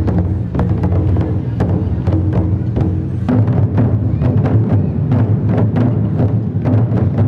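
Traditional Taiwanese drum-and-gong ensemble playing: big drums beaten fast and continuously, with sharp gong and cymbal clashes several times a second.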